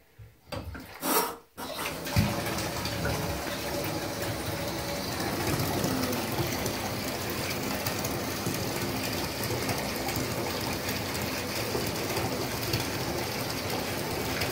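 Bathtub spout pouring a steady stream of water into the filling tub, a continuous gushing splash that starts about a second and a half in.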